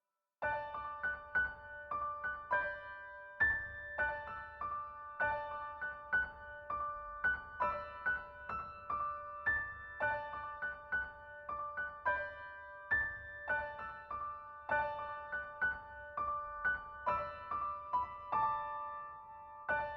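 Gentle solo piano music: a steady flow of soft, ringing notes in a repeating pattern.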